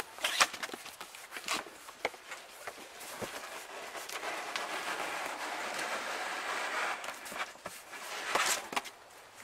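Cardboard handling: a few sharp knocks as a shipping carton is tipped over, then a long scraping slide as the carton is pulled up off the boxed appliance inside, with a louder scrape near the end.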